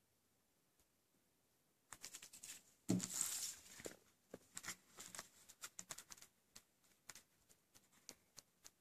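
Hands handling an open plastic Blu-ray case and a paper insert card. A thump and rustle come just under three seconds in, followed by a run of light plastic clicks and taps.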